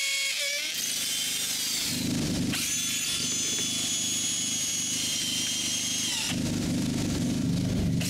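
Power drill running under load while drilling into concrete block, a steady motor whine over a rough rattle. The whine shifts in pitch a couple of times as the speed changes.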